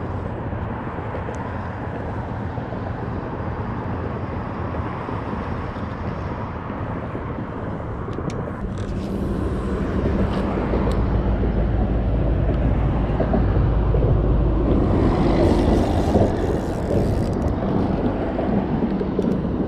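Steady low rumble of motors outdoors, with wind on the microphone, swelling louder from about halfway through for several seconds.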